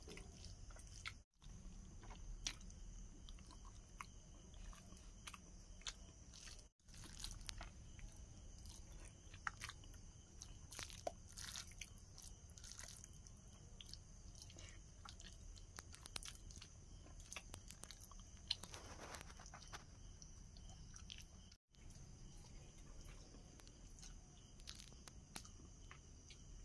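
Faint mouth sounds of a man eating rice by hand: soft, scattered clicks and smacks of chewing over a steady hiss. The sound drops out to silence three times, very briefly.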